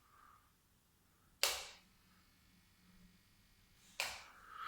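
Two sharp clicks, about two and a half seconds apart, each dying away quickly, with near-quiet between them.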